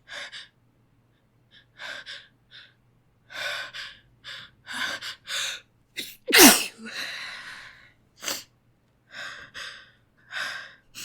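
A woman's run of short gasping in-breaths building up to a sneeze, then one loud sneeze about six seconds in, followed by a breathy exhale and a few more gasping breaths.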